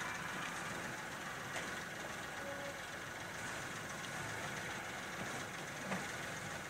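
A vehicle engine idling steadily, with a couple of faint knocks, one about a second and a half in and one near the end.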